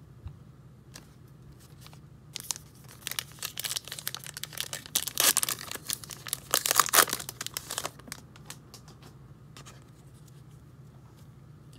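Foil wrapper of a 2020 Topps Gypsy Queen baseball card pack being torn open and crinkled by hand. It is a run of crackling tears from about two seconds in to about eight seconds, loudest near the end of the run.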